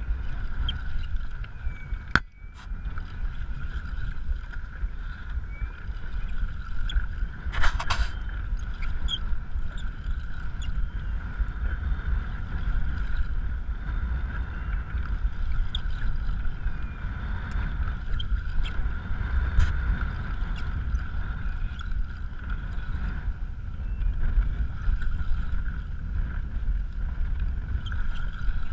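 Wind rumbling on a chest-mounted GoPro's microphone over open water while a spinning reel is cranked against a hooked fish, with a faint steady whine throughout. A sharp click comes about two seconds in and a short burst of noise near eight seconds.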